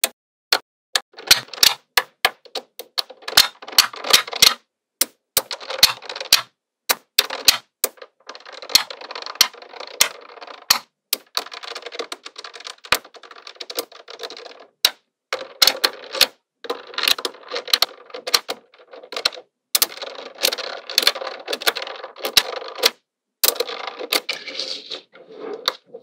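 Small magnetic metal balls clicking and snapping together as strands are laid and pressed into a flat sheet. Single sharp clicks alternate with longer stretches of fast clattering as whole rows shift and rattle against each other.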